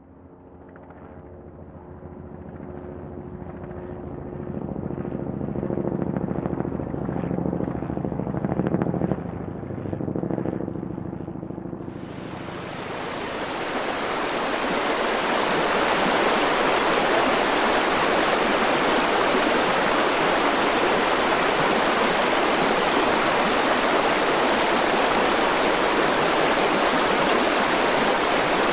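River rapids: white water rushing and churning between boulders, a loud steady rush that cuts in suddenly about twelve seconds in. Before it, a low steady hum with several held pitches grows louder.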